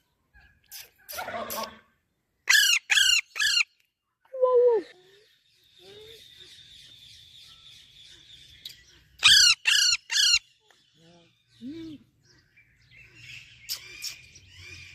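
Baby Alexandrine parakeet calling: two bursts of three loud, harsh chirps, with softer chirps and squeaks between.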